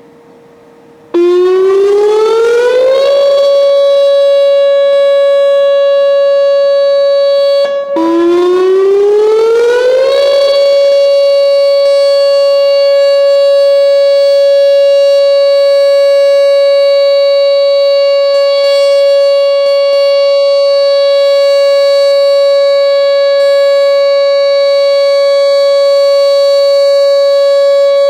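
Whelen WPS-2910 electronic outdoor warning siren sounding its steady Alert signal. About a second in it starts suddenly, rises in pitch for about two seconds and holds one loud steady note; it cuts out briefly around seven seconds in, then rises again and holds the same note.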